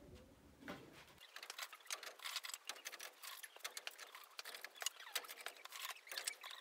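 Faint, irregular clicks and light knocks of split firewood, several a second.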